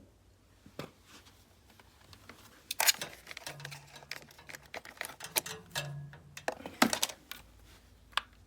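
A series of irregular clicks and knocks from hard plastic parts being handled, loudest about three seconds in and again near seven seconds.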